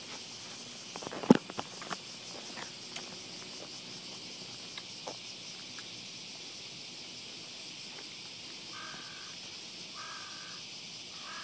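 Steady high-pitched drone of insects, with a sharp click about a second in and a crow cawing three times near the end.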